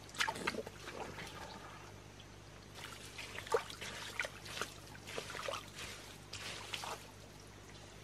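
Hands squelching and sloshing through wet mud and shallow muddy water: a brief bout of splashes at the start, then a longer run of wet slaps and squelches from about three to seven seconds in.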